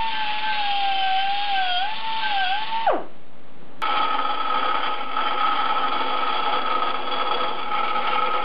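A die grinder with a small sanding disc whines against a welded stainless steel plate, its pitch dipping each time it bites, then falls away sharply about three seconds in. After a short break, a vertical bandsaw runs steadily, cutting the small stainless steel plate.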